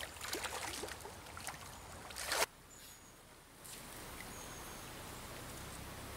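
Water splashing and sloshing, irregular, as a person wades in a shallow stream, ending in a louder splash about two and a half seconds in. After that the sound drops suddenly to a faint, steady stream background.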